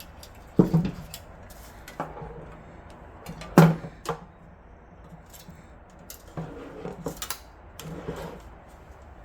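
Computer parts and tools being handled on a work surface: scattered clicks and knocks of small hard objects. The loudest knock is about three and a half seconds in, and a run of lighter taps follows near the end.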